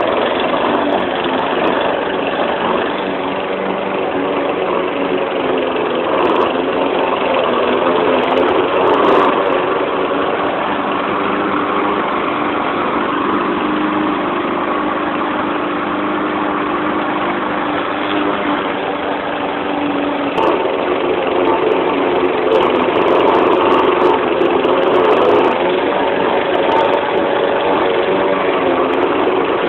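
YardMan 21-inch push mower's 159cc PowerMore single-cylinder gas engine running steadily, its pitch shifting slightly about two-thirds of the way through.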